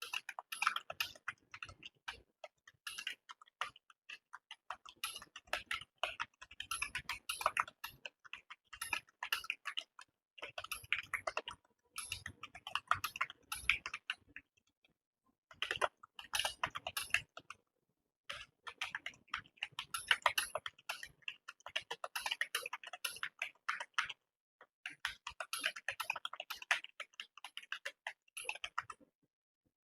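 Computer keyboard typing: rapid, steady keystrokes in runs of a few seconds, broken by short pauses.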